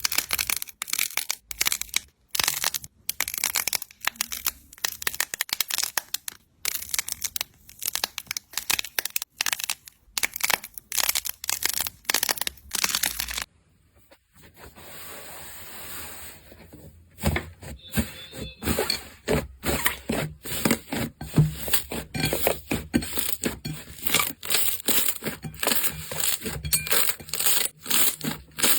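Slime being squeezed, stretched and pressed by hand, giving rapid crackling and popping. It stops briefly a little past the middle, gives a few seconds of softer hiss, then the crackling resumes.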